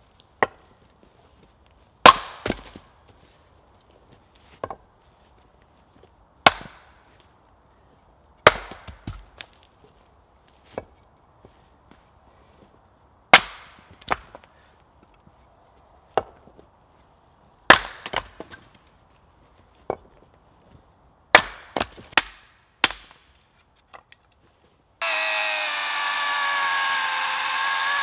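Axe splitting logs on a chopping block: a sharp wooden chop every two seconds or so, some followed by lighter knocks. About three seconds before the end an Oregon chainsaw starts cutting through a log with a steady whine.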